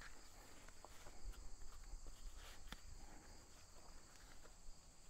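Faint, steady high chirring of insects such as crickets, with a few soft clicks and scuffs of someone moving about close by.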